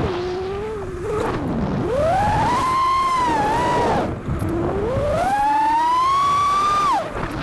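FPV racing quadcopter's brushless motors (XING 2307 2450kv spinning Gemfan Sbang 4934 props) whining, the pitch gliding up and down with throttle. It drops at the start, climbs to a steady high pitch about two seconds in, falls away near four seconds, climbs again and cuts sharply near the end.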